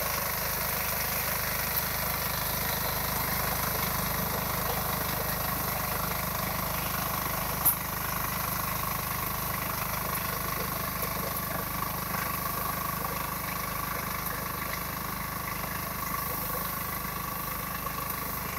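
Small engine running steadily without change in pitch, with a single sharp click about eight seconds in.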